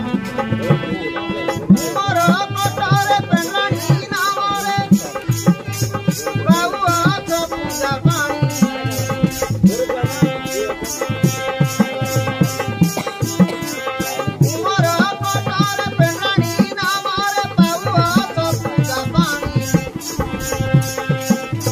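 Live folk instrumental music: a wavering melody on an electronic keyboard over a fast, steady percussion beat of rattle and drum.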